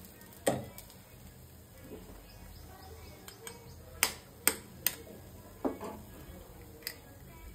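A hen's egg tapped sharply three times in quick succession, about half a second apart, to crack its shell. About half a second in there is a single louder knock, and a couple of fainter clicks follow the taps.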